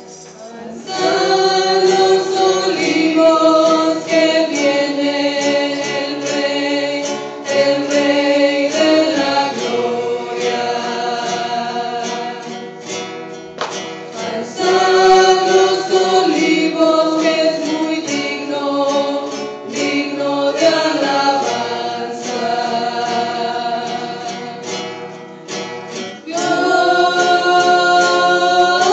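Small mixed choir singing a hymn in Spanish, accompanied by two strummed acoustic guitars; the singing breaks off briefly between phrases about halfway through and again near the end.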